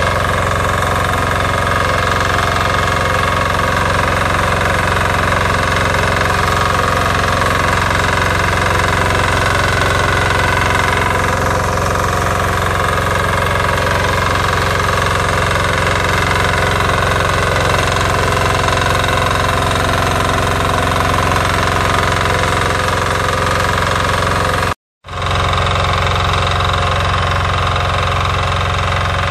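Weima BSR 1100 BE rotary tiller's 12 hp single-cylinder diesel engine running steadily under load as its tines churn the soil. Near the end the sound breaks off for a split second, then resumes.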